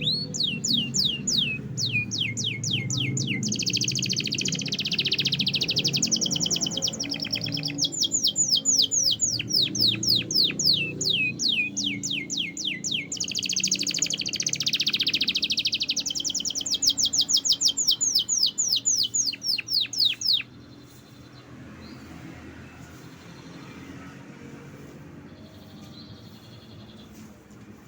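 Domestic canary singing rapid trills, long runs of fast downward-sweeping notes, for about twenty seconds before stopping suddenly; a few faint chirps follow.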